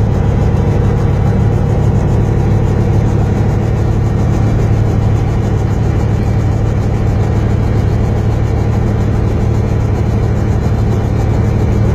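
Robinson R44 helicopter's engine and rotor running steadily, heard from inside the cabin: an even, loud low hum with a fast, even flutter.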